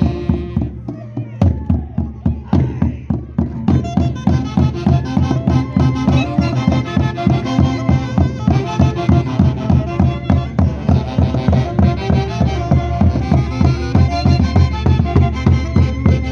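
Andean band from Huancayo playing a Santiago dance tune: a melody over a steady, quick drum beat, filling out about four seconds in.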